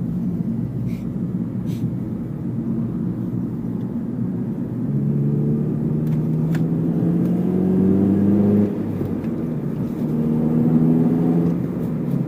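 Car engine and road noise while driving a manual car: the engine pitch climbs under acceleration and drops suddenly at two upshifts, one a little under 9 seconds in and one near the end.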